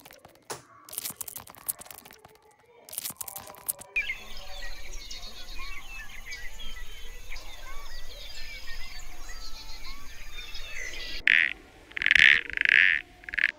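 Scattered rustling and clicking, then from about four seconds in a dense chorus of many small birds chirping and twittering together. Near the end come a few loud, separate calls.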